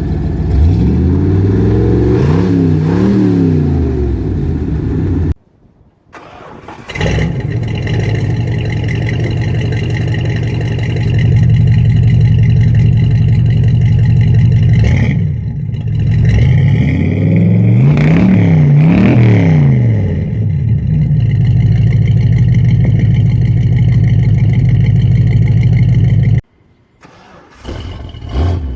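Ford 351 Windsor V8 of a 1966 Ranchero idling through cast exhaust manifolds into a 2.5-inch exhaust with an aftermarket muffler. It is revved up and let back down to idle twice, once early and once about two-thirds of the way in. The sound breaks off abruptly twice.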